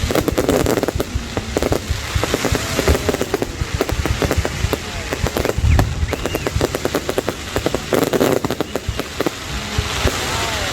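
Fireworks going off in a dense, continuous string of sharp cracks and pops, with a deeper boom now and then.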